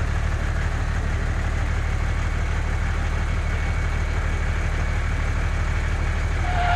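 Tractor engine idling steadily with a low, fast-pulsing rumble. Near the end a high whine starts and rises slightly in pitch.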